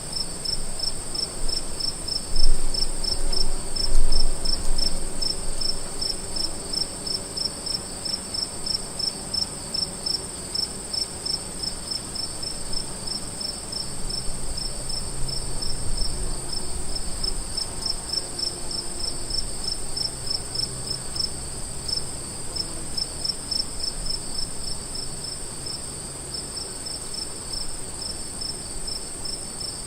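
Crickets chirping: one steady high trill and, below it, a rhythmic chirping of about three to four chirps a second, with a low rumble underneath that swells briefly a few seconds in.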